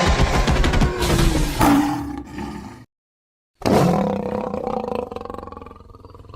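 Two roaring creature sound effects, one after the other, with a short gap of dead silence a little under three seconds in. The second roar starts loud and fades away.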